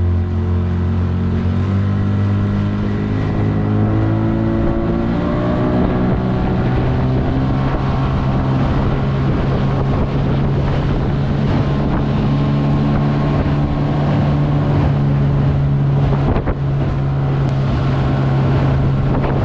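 Mercury 25 hp two-stroke outboard motor running with the boat under way, rising in pitch over the first few seconds as it speeds up, then holding a steady pitch. Wind on the microphone.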